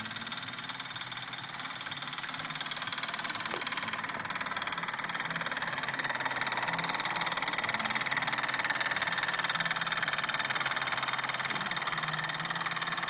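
Wilesco toy steam engine running fast, with a rapid, even chuffing and a steady hiss of steam. It grows a little louder in the middle.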